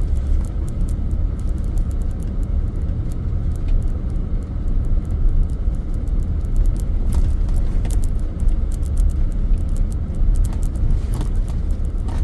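Steady low rumble of a Chevrolet Suburban driving through deep snow, heard from inside the cabin: engine and tyre noise, with many light scattered ticks and crackles over it.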